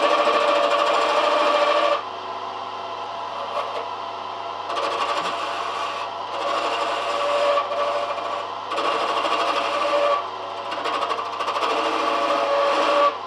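A lathe running while a handle blank is turned, the cutting tool going on and off the work in passes of one to two seconds that each add a loud hiss over the motor's steady hum.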